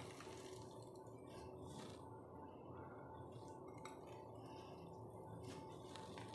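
Near silence with a faint steady hum, broken by a few light clinks of a steel bowl against a ceramic plate as fried onion fritters are pressed flat.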